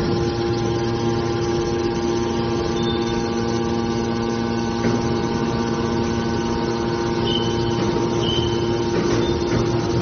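Hydraulic metal baler's motor and pump running with a steady hum, joined in the second half by a few short, faint high tones.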